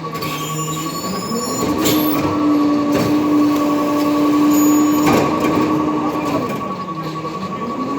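Recycling truck's engine revving up from idle about a second in, holding a higher steady pitch for about five seconds, then dropping back and revving up again near the end. A steady high-pitched tone runs underneath.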